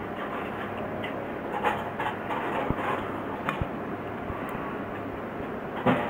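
A few light knife clicks and scrapes on a cutting board while pin bones are taken out of a horse mackerel fillet, with a stronger click near the end, over a steady background hiss.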